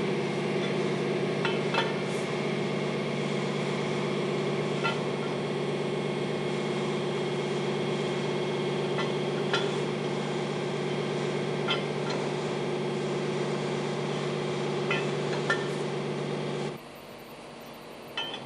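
A machine motor running with a steady hum, with occasional light metallic clinks over it; the hum cuts off abruptly near the end.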